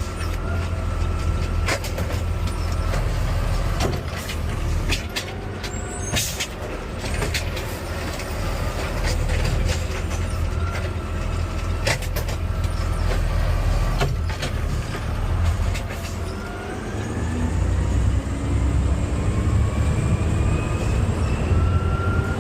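Garbage truck's diesel engine running, heard from the cab, with scattered clunks and a short sharp hiss about six seconds in. From about two-thirds of the way through, the engine pitch climbs steadily as the truck pulls away and speeds up.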